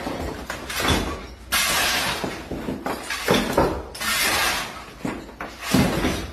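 Shovel and broom scraping and scooping broken masonry rubble on a concrete floor: repeated rasping strokes about half a second to a second long, with a few knocks of stone among them.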